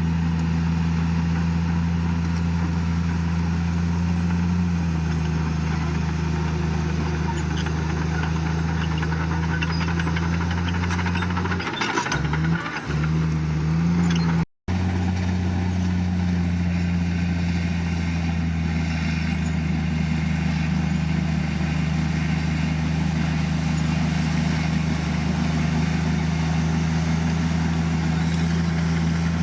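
Heavy diesel engine of a bulldozer running steadily under work, its pitch dropping slightly about five seconds in and shifting again with a spell of clatter around twelve seconds in. The sound cuts out for an instant a little past halfway, then the same steady engine carries on.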